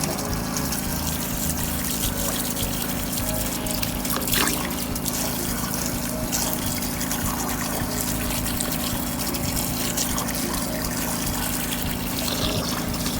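Water running and trickling steadily, with a steady low hum underneath, like a pump.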